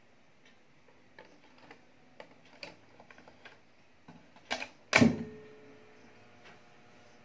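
A cassette pushed into the slot of a Pioneer car cassette deck: a few light clicks and rattles, then two louder clicks and a loud clunk about five seconds in as the loading mechanism takes the tape. A faint steady hum follows.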